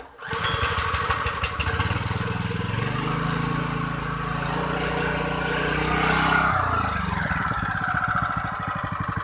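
Brand-new Honda WL30XN 3-inch water pump's GP single-cylinder four-stroke engine pull-started, catching at once and running fast and steady. About six and a half seconds in the engine speed drops to a slower, uneven idle with separate firing beats.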